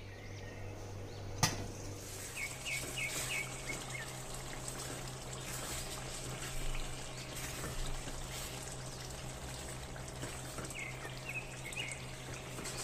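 Thick curry gravy with mutton koftas simmering and bubbling in a steel karahi while a silicone spatula stirs it, over a steady low hum. One sharp click comes about a second and a half in, and short chirps are heard twice, once early and once near the end.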